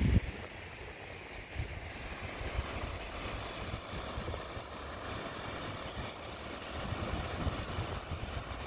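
Wind buffeting the microphone in irregular gusts over a steady hiss of waves breaking on a rocky shore.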